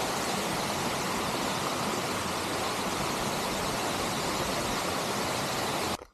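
Waterfall: a steady, even rush of falling water that cuts off suddenly near the end.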